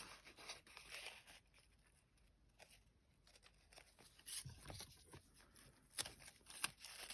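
Faint, scattered rustles and light ticks of a paper napkin's thin tissue layers being peeled apart by hand, with a near-silent stretch in the middle and a few sharper ticks near the end.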